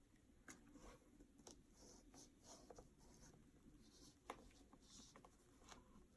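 Faint scratching and light tapping of a shoe edge-dressing applicator being rubbed over a shoe's sole, with small irregular clicks.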